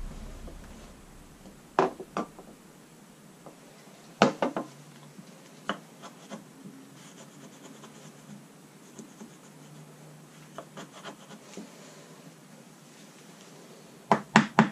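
Scattered sharp clicks and taps over faint scraping and rubbing: hand work on a jet ski's fiberglass deck, prying up old traction-mat foam and adhesive softened with solvent. The clicks come once about two seconds in, again about four seconds in, and in a quick cluster near the end.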